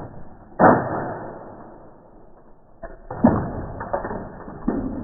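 A few sudden knocks and clunks, the loudest about half a second in and another about three seconds in, each dying away over a second or so.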